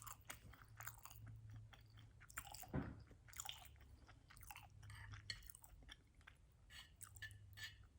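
Quiet close-miked chewing and lip smacking: irregular soft wet clicks of a mouth working through food, with one louder moment about three seconds in.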